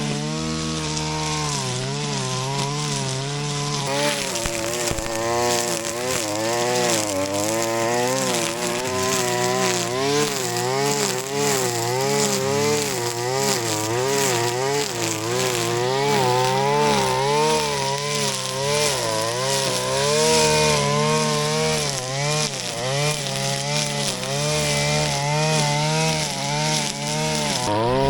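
Shindaiwa RK3026-PT brush cutter's 25.4 cc two-stroke engine running at high speed while cutting grass, its pitch wavering up and down about once a second as the cutting head swings through the grass and takes load.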